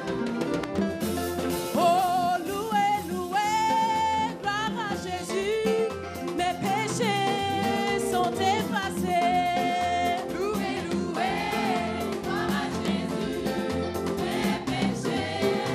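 A French gospel praise song: several voices singing a melodic line with long held notes over a band with a steady beat.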